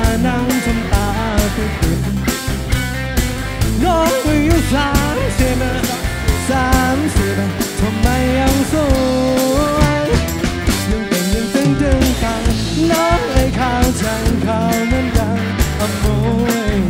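Live band playing an upbeat luk thung song, a drum kit keeping a steady beat under a heavy bass line and a melodic lead line that bends in pitch.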